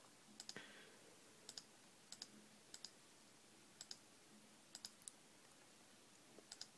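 Computer mouse button clicking about eight times at irregular intervals, each click a quick double tick of press and release, as points of a mask are placed one by one.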